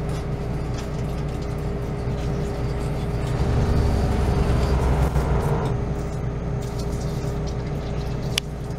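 Water spraying from a dental water-jet tip into a dog's mouth to wash off tartar, over a steady machine hum; the spray and splashing swell louder from about three and a half to six seconds in. A sharp click near the end.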